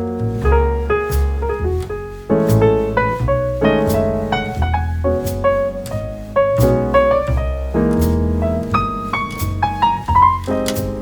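Background music: piano with a bass line and light drums, in a jazzy style.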